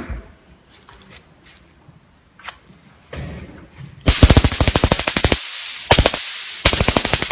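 Flashlight-style stun gun arcing across its electrodes: a rapid electric crackle of sharp snaps, about a dozen a second. It comes in three bursts starting about four seconds in, the first over a second long and the next two shorter.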